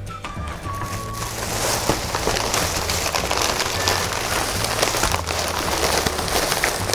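Thin plastic shopping bag rustling and crinkling as hands rummage through it, a dense crackle that starts about a second in and keeps going.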